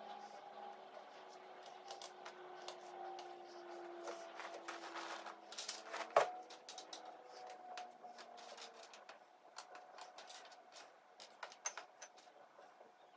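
Cardboard jigsaw puzzle pieces clicking and rustling as they are picked up and sorted by hand, with one sharper knock about six seconds in.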